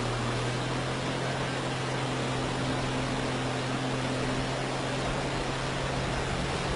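A vehicle engine running with a steady low hum under a constant rushing hiss, unchanged throughout.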